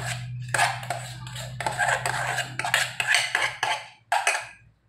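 Rubber spatula scraping and knocking against a metal mixing bowl in short, irregular strokes as beaten egg whites are scraped out into chocolate cake batter, over a low steady hum that stops about four seconds in.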